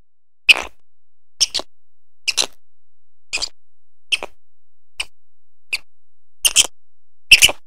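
Golden-mantled ground squirrel giving short, sharp chirps, about one a second, some in quick pairs, the last pair loudest.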